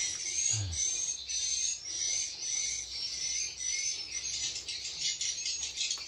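Swiftlets (burung walet) twittering: a dense, high chatter with a short chirp repeating about twice a second.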